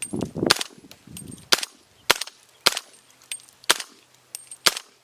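PSA JAKL rifle firing a string of shots in quick succession, roughly two a second and some fainter than others, cycling without a stoppage.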